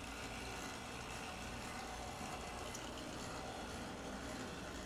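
HO-scale brass model steam locomotive running on its track, its open-frame motor and drive gearing whirring steadily.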